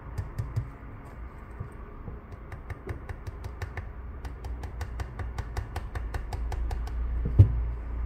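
Quick runs of small sharp clicks, several a second, from handling a metal phone-opening clamp, over a steady low hum, with one louder knock near the end.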